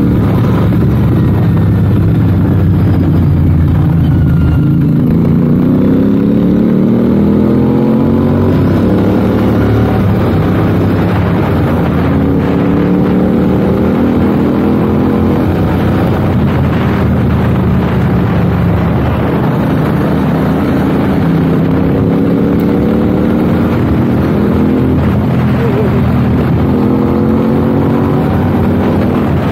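Royal Enfield 650 parallel-twin motorcycle engine running under way. Its pitch climbs and drops back again and again with throttle and gear changes.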